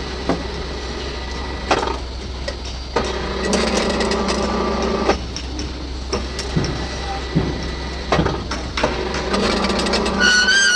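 Rebar ring (stirrup) bending machine running: a steady motor hum with sharp metal knocks about once a second. A louder, steadier motor drone comes in twice for a second or two, and a short high squeal sounds at the very end.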